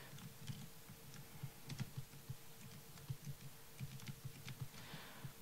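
Faint, irregular clicks and taps of a computer keyboard in use, over a low steady hum.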